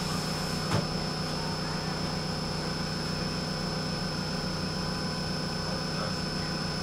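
Steady hum of a tram heard from on board, with a thin high whine over it and one short knock a little under a second in.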